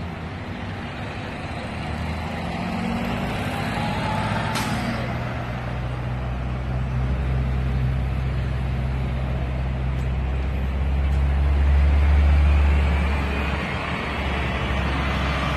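A motor vehicle's engine running with road traffic noise: a steady low hum that swells about twelve seconds in. A single sharp click comes about four and a half seconds in.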